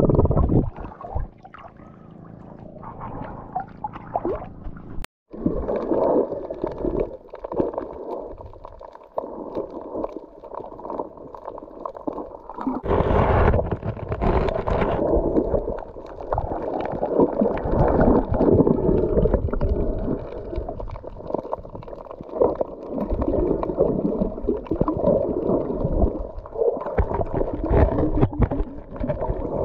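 Muffled sound recorded underwater: irregular sloshing and gurgling of water moving past the microphone. There is a brief cut-out about five seconds in, and a brighter, hissier stretch of a couple of seconds near the middle.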